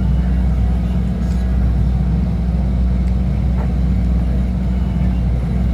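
A steady, loud, low-pitched drone with a few faint crackles.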